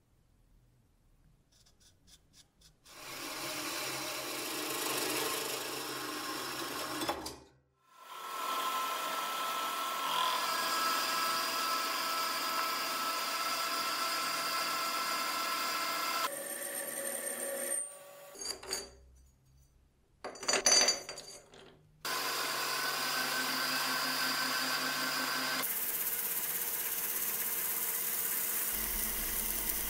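Metal lathe turning down a metal bar with a carbide-insert cutting tool: a steady cutting hiss with a faint steady whine, in several short cuts, with a few sharp clanks around the middle. Near the end, sandpaper strips held against the spinning tube make a steady sanding hiss.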